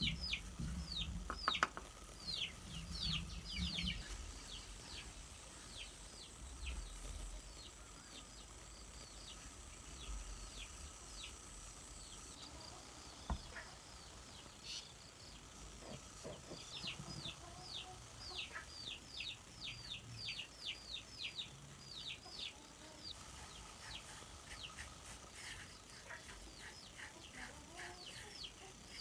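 Chickens peeping: short, high, downward-sliding chirps in quick runs, busiest at the start and again from about halfway through, with a low rumble under the first few seconds.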